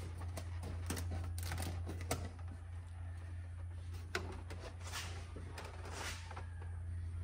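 Clicks and short rustles of plastic quart oil bottles being handled and opened to refill the engine, over a steady low hum.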